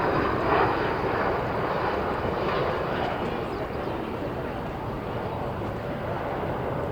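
Jet engine noise of a departing Boeing 777-200ER airliner, a steady rushing sound that slowly fades as the aircraft climbs away.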